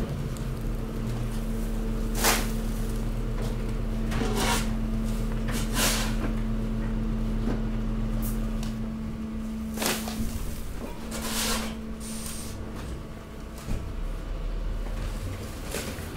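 Hydraulic garbage compactor press running with a steady hum while it squeezes bagged household waste, with several sharp cracks and pops as bags and plastic give way.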